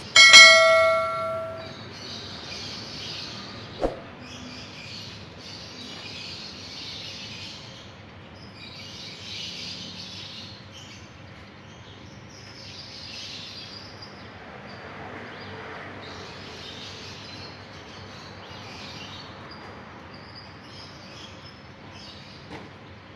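A click and a ringing chime sound effect lasting about a second and a half, from a subscribe-button animation. After it comes steady outdoor ambience with high chirping in repeated short bursts and a single click about four seconds in.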